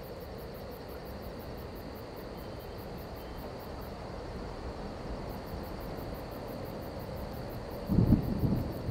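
Crickets chirping in a steady pulse of about three to four chirps a second over a low steady background, pausing briefly near the middle. Near the end a loud low roll of thunder breaks in.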